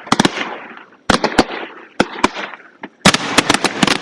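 Fireworks exploding: sharp bangs of bursting shells in quick clusters, each followed by crackling, with a dense rapid run of cracks starting about three seconds in.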